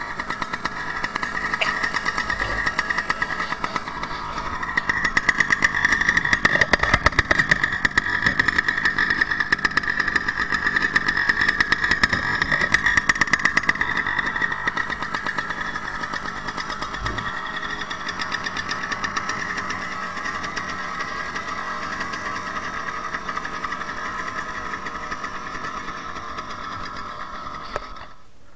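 Small two-stroke petrol engine of a 1/6-scale RC car running steadily at idle, holding one pitch, louder for several seconds in the first half.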